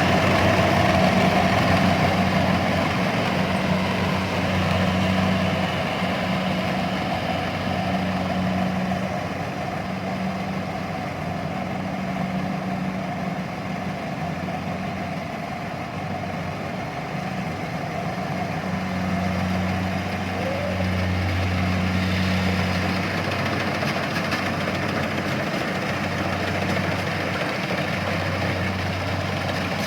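An engine running steadily for the whole stretch, a low hum that swells and eases a little now and then, over a broad mechanical clatter.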